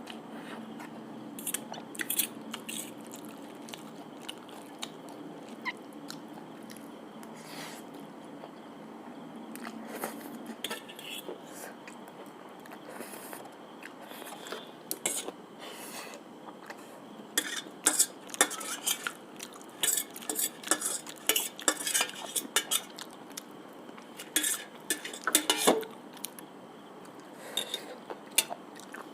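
Cutlery clinking and scraping against a plate, with chewing, as a person eats. The clicks are scattered at first and come in quick clusters through the second half.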